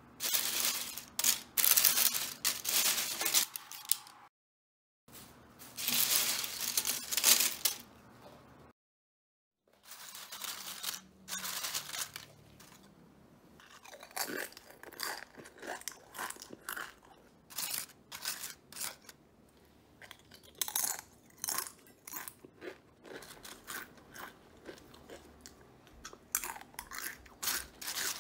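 Crisp baked dried-tofu chips rustling and crackling against parchment paper as they are tossed by hand, in two bursts of a few seconds each. Then a long run of short, sharp crunches and crackles from the chips.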